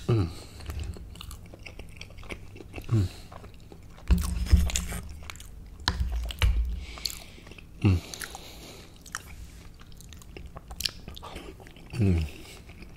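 Close-miked chewing and biting of gumbo and crumbly cornbread fritters, with wet mouth noises, a few short low sounds sliding down in pitch, and a few low thumps.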